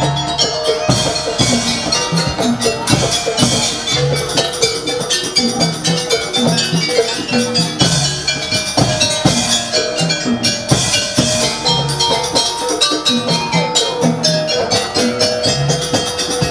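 Live jaranan accompaniment. Hand drums beat a fast, busy rhythm under ringing bronze gong-chimes and metallophones.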